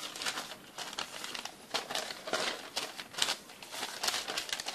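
Sheets of paper rustling and crinkling in quick, irregular rustles as they are handled, folded and turned over by hand.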